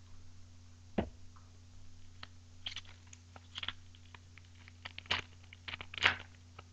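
Foil wrapper of an Upper Deck hockey card pack crinkling and tearing as it is opened, with cards being handled: scattered crackles and clicks, loudest about a second in and again near five and six seconds. A steady low hum sits underneath.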